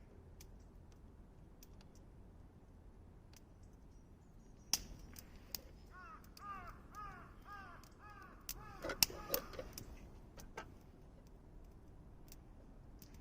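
A crow cawing, a quick run of caws a few seconds long about halfway through. Scattered sharp crackles and pops run throughout, the loudest around nine seconds in, typical of a wood campfire.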